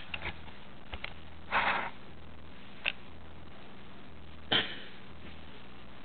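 Handling noises while the bike and camera are moved into place: a few faint clicks, a short breathy rustle, then a sharper click and a knock, over a steady low hiss.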